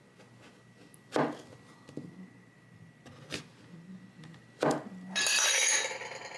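Three sharp knocks of things being set down or tapped on a table, then a loud rattling clatter lasting about a second near the end.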